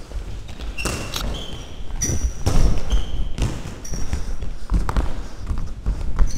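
Indoor football game in a sports hall: a ball being kicked and thudding on the hard floor, running footsteps, and several short high squeaks of sneakers on the floor, with the ring of the large hall behind them.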